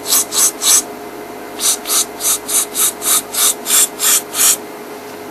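An animal's harsh rasping call, repeated about three to four times a second in two runs, the second run stopping a little past halfway.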